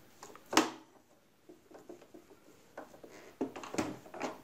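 Screwdriver and hands clicking and knocking against the plastic housing of a Singer Promise 1408 sewing machine as a screw is tightened. There is one sharp clack about half a second in, a few light ticks, then a cluster of knocks near the end.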